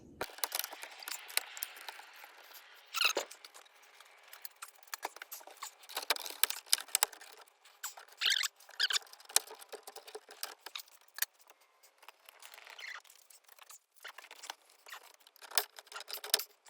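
Plastic sunroof trim ring of a Porsche Cayenne being pried loose by hand: an irregular run of sharp clicks and snaps as its hidden retaining clips pop free, with a few short plastic squeaks.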